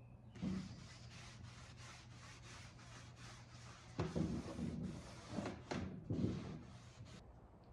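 Wood finish being wiped onto the dresser's wooden surface by hand: quick, even rubbing strokes, about three a second, with a few louder knocks about halfway through.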